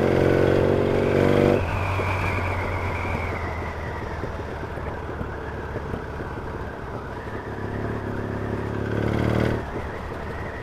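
Yamaha XS650 parallel-twin engine on the road, pulling under throttle, then easing off about a second and a half in. It pulls again briefly near the end before backing off, over steady wind and road noise.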